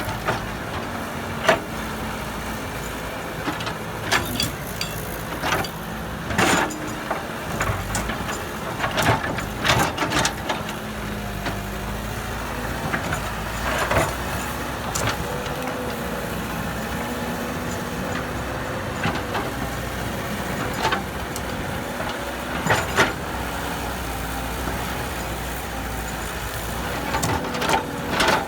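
Heavy diesel construction machinery running steadily, with irregular sharp clanks and knocks over the engine drone.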